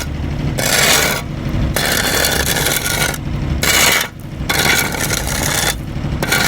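Square shovel scraping through loose hot asphalt to trim the edge along the cut, a series of rasping strokes about one a second.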